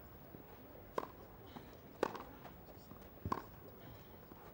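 Tennis ball struck by rackets in a rally: three sharp pocks about a second apart, the middle one the loudest.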